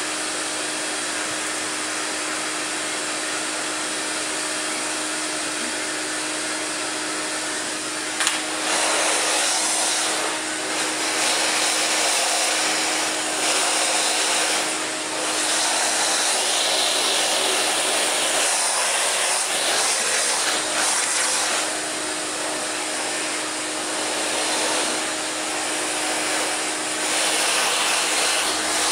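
Household vacuum cleaner running, with a steady motor hum under a rushing suction hiss. About eight seconds in, after a click, the hiss grows louder and then keeps rising and falling.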